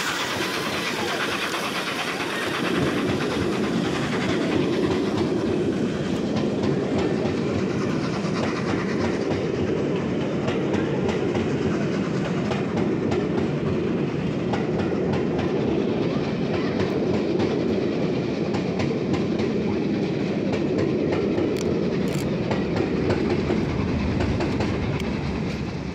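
Steam-hauled train passing close by, LNER A3 Flying Scotsman at its head. There is a hiss as the locomotive goes under, then the coaches roll past for over twenty seconds with a steady rumble and clatter of wheels on the rails, which dies away near the end.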